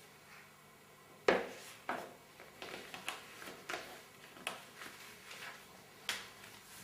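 Unboxing handling sounds: one sharp click about a second in, then a run of lighter clicks and rustles as the packaging and its contents are handled.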